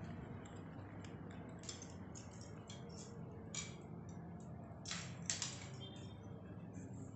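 Quiet room tone: a steady low hum, with a few light clicks and taps scattered through it, the clearest about five seconds in.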